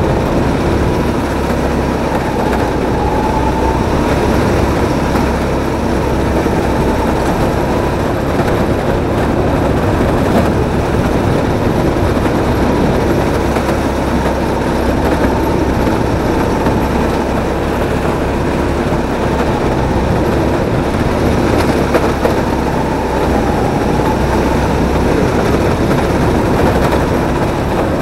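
A drift kart lapping, heard from onboard: a steady, loud running rumble with a faint motor tone that rises and falls a little as the kart slides through the corners.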